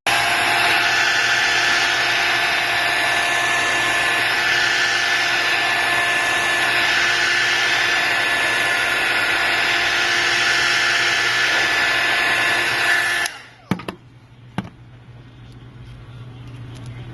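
Heat gun blowing steadily with a whine from its fan motor, softening the adhesive under an iPad mini's cracked glass; it is switched off about thirteen seconds in, followed by a couple of light clicks.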